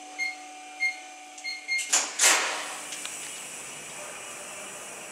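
Short electronic keypad beeps, several in quick succession, as a code is entered on a door's access panel. About two seconds in, the door opens with a loud rush of noise that settles into a steady hiss of moving air.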